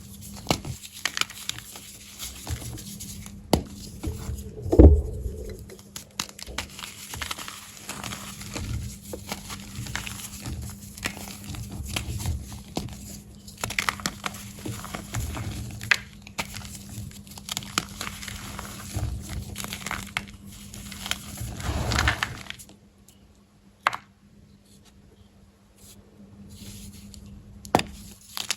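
Soft, crunchy gym chalk blocks being crushed and crumbled by hand: a run of crisp crunches and crackles, with a heavy thud about five seconds in. There is a short lull near the end, broken by a single crack.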